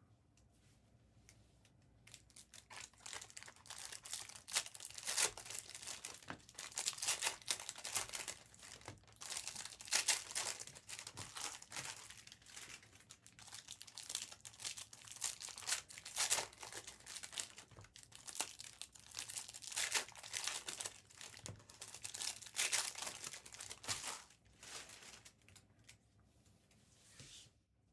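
Trading-card pack wrappers being torn open and crinkled, a dense crackling that starts about two seconds in and dies away a few seconds before the end.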